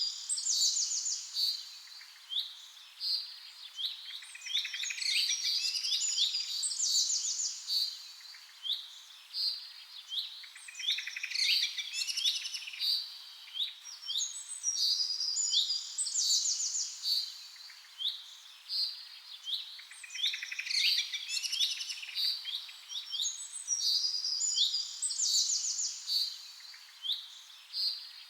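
Recorded birdsong: small birds chirping and trilling in a dense chorus. The same passage repeats about every eight seconds, like a looped background track.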